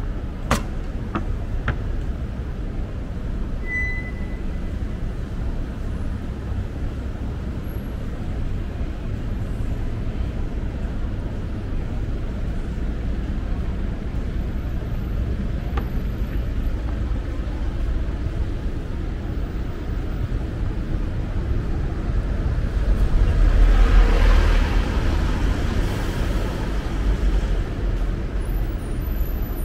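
Street traffic: a steady low rumble of passing cars. A few sharp clicks come in the first couple of seconds. About three-quarters of the way through, a louder vehicle passes, swelling and fading over a few seconds.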